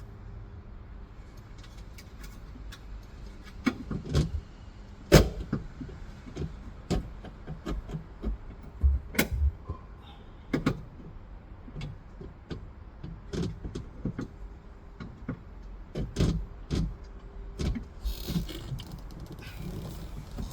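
Irregular clicks, taps and knocks of hand work on car parts, with one sharper knock about five seconds in and a short rustle near the end.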